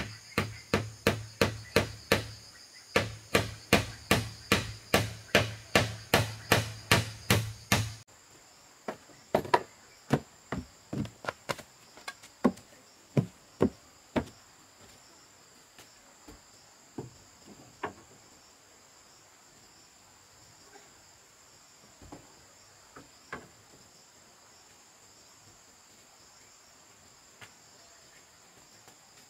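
Hammering: fast, even blows about two or three a second. After an abrupt change these become slower, irregular knocks and then only occasional taps. Insects keep up a steady high chorus throughout.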